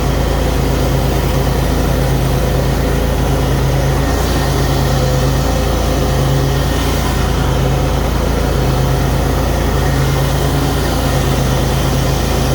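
Bad Boy zero-turn mower's 23 horsepower Vanguard V-twin engine running steadily with the mower deck's blades engaged, cutting grass.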